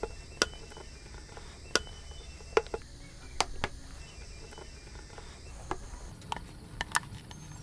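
Scattered light clicks and taps of a steel needle point and a strip of stapler pins against a hard plastic water tank as marking points are pricked into the plastic, about a dozen irregular ticks over a faint low hum.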